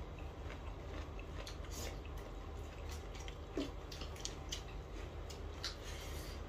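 Eating by hand: a person chewing and mixing rice with the fingers on a metal plate, giving irregular soft wet clicks and smacks over a low steady hum.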